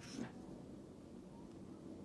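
Glitter slime being handled faintly: one soft squish right at the start, then only a faint hush.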